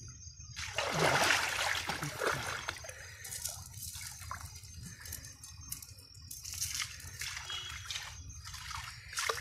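Shallow pond water sloshing and trickling around a cast net as it is hauled in by a person wading, loudest about a second in, with smaller splashes after.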